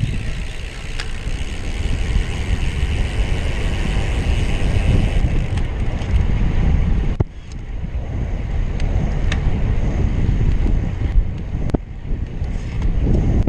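Wind buffeting the microphone of a camera on a moving road bike, a loud low rumble that dips briefly about halfway through. A few sharp clicks come through in the second half.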